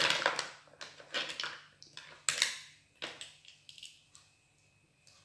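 Mussel shells clattering and scraping against each other as a hand rummages through them in a plastic bowl. It comes as a run of crackly bursts that die away about four seconds in.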